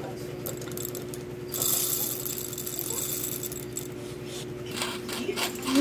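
Roasted coffee beans poured from an aluminium cup into a metal hand coffee grinder, rattling down onto the burr and the walls for about a second and a half. A few scattered clicks of beans settling follow near the end.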